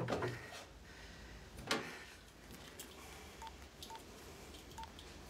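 Mobile phone keypad beeps as keys are pressed: three short single-pitch beeps in the second half, after a knock about two seconds in.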